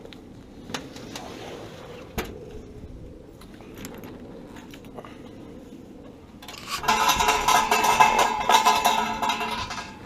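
A few scattered clicks and knocks, then, about two-thirds of the way in, several seconds of loud metal pieces jangling and rattling together with a ringing clatter, stopping abruptly near the end.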